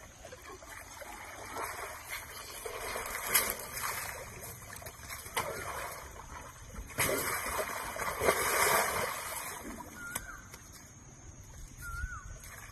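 Elephants wallowing in wet mud: irregular squelching and splashing as they rub and push against a soft mud bank.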